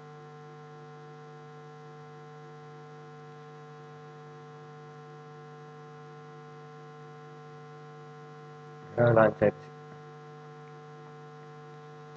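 A steady electrical hum, several steady tones at once, switches on abruptly and runs on evenly. About nine seconds in, a short burst of a voice breaks through it.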